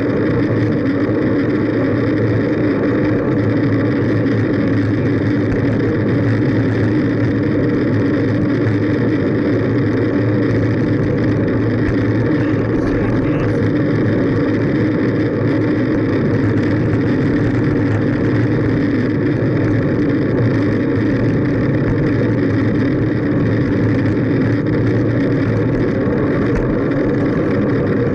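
Steady road and wind noise from riding a fixed-gear bicycle along an asphalt road, picked up by a camera mounted on the bike: an unbroken drone that stays the same level throughout.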